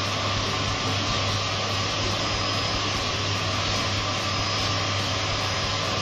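Vacuum cleaner running steadily, a constant rushing with a low hum, its hose sucking the air out of a large plastic bag.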